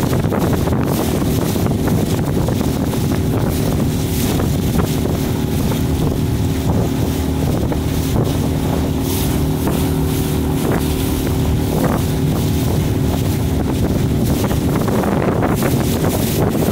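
Wind buffeting the microphone on a small boat on open river water, over a steady low hum.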